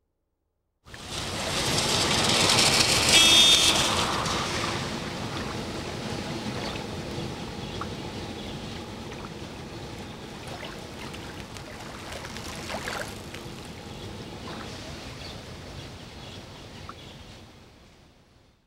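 Flooded city street ambience: water splashing and sloshing with traffic, starting suddenly about a second in and loudest over the first few seconds, then slowly fading out near the end.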